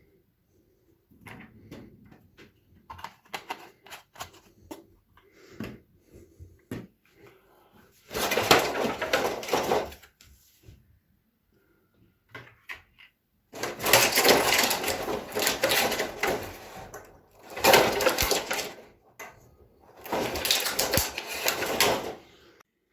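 Toy-gun packaging being handled and unwrapped: light clicks and knocks at first, then four loud stretches of rustling and crinkling, each one to three seconds long.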